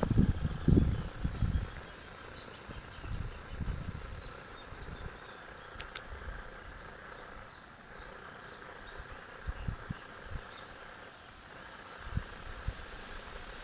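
Mangrove insects buzzing steadily, a high thin drone with a lower chirring band beneath it. Low muffled bumps sound in the first two seconds and again briefly near the end.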